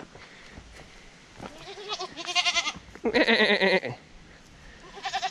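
Goats bleating: three wavering, quavering bleats, the loudest about three seconds in, and another starting near the end.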